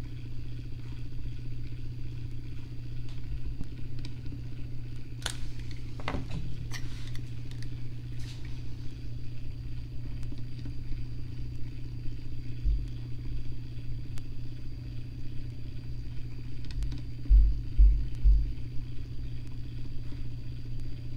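Steady low hum of the motor that turns the fishing rod. A few light clicks come about five to eight seconds in, and dull low thumps come in the second half, loudest a few seconds before the end.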